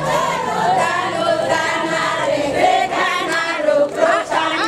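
A crowd of villagers singing a chant together, many voices wavering in pitch: the song that goes with the Javanese cowongan rain-calling procession.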